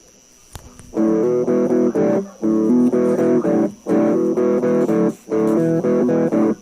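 Guitar playing a repeating picked riff of four short phrases with brief pauses between them, beginning about a second in; this is the intro of a song.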